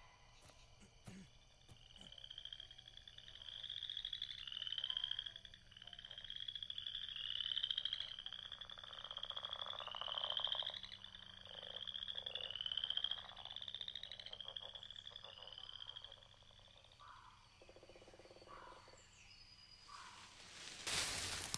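Frogs calling at night, a series of short, rattling, high-pitched croaks about two a second that fades out after about sixteen seconds. Near the end comes a loud burst of rustling noise.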